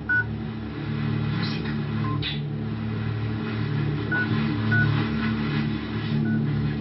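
Steady low electronic hum with a handful of short, high beeps scattered through it, heard off a television's speaker.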